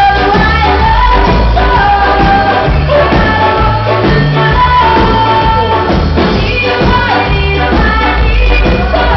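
A live band playing a song with a singer, held sung notes over a heavy, steady bass line and percussion.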